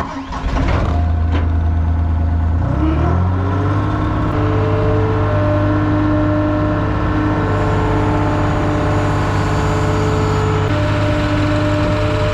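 Skid steer engine running; the throttle comes up about three seconds in, the pitch rising, then it holds at a steady higher speed.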